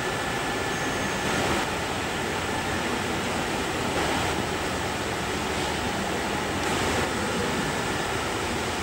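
Steady rushing background noise of a large hall, swelling slightly now and then.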